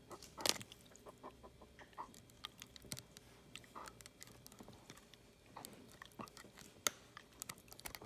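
A Weimaraner chewing and biting on a plastic dental floss pick: irregular clicks and smacks of teeth and jaws, the loudest about half a second in.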